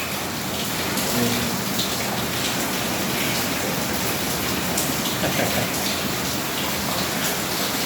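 Heavy rain falling steadily: a dense, even hiss of a downpour on surfaces.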